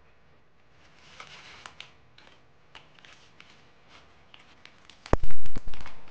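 Faint crinkling of a holographic plastic zip-lock pouch being handled. About five seconds in comes a loud low thump that lasts about a second.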